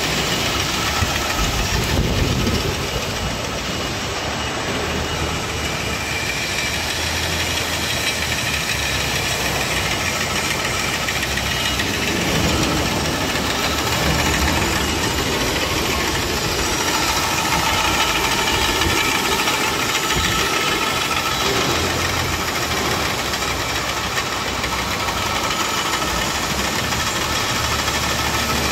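Small textile braiding machine running steadily: a continuous mechanical whir from its motor and spinning central spindle. A few faint steady whining tones come through more clearly about halfway through.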